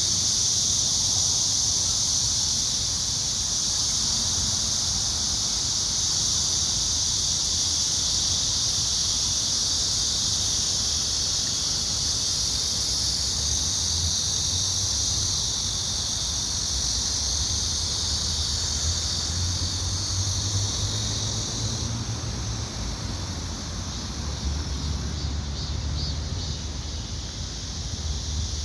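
A steady, high-pitched chorus of singing insects, the sound of late summer turning to autumn. About three-quarters of the way in the chorus thins a little and a faint pulsing call comes in, over a low rumble.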